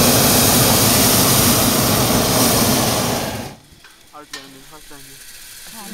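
Hot air balloon's propane burner firing with a loud, steady roar, then cutting off abruptly about three and a half seconds in.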